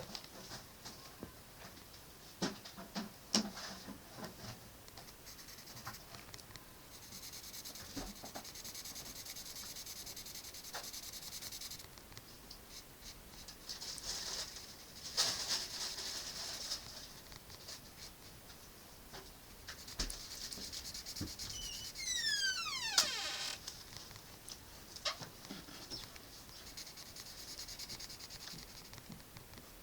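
A drawing tool scratching across paper in stretches of strokes lasting a few seconds each, with scattered light taps. About 22 seconds in there is a short run of high squeaks that fall in pitch.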